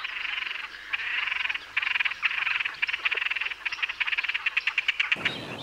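Great crested grebes calling during their courtship display: a series of dry, rattling trills that break into a run of quick, separate clicks about two-thirds of the way through.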